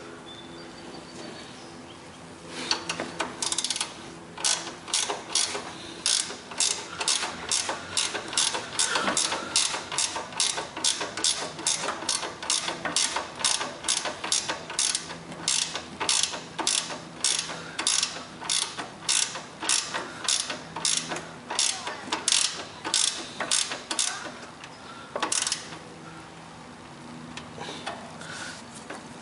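Hand socket ratchet clicking as a nut or bolt is worked on the lawn tractor's front steering assembly, in quick even strokes about twice a second. The clicking stops near the end, followed by one last click.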